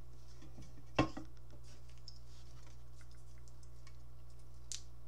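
Aluminium energy-drink cans and their packaging being handled: one sharp knock about a second in, then scattered small clicks and taps, over a steady low hum.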